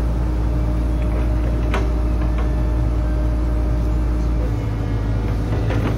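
Heavy machine's engine running steadily under a constant low hum, with a single knock about two seconds in.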